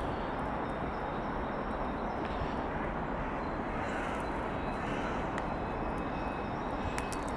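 Steady background rumble of distant traffic, with a few faint clicks.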